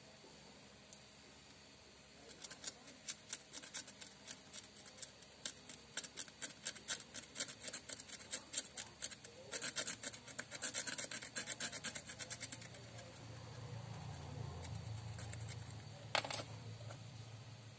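A steel razor blade scraping a smartphone's glass touchscreen in rapid short strokes, several a second, to take off the black paint covering the logo; the scraping stops about three quarters of the way through, and a single sharp click comes near the end.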